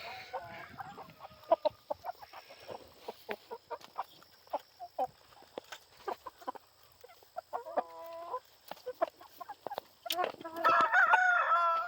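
Meat chickens clucking and calling over many quick ticks, with a short call about eight seconds in and a louder, longer call near the end.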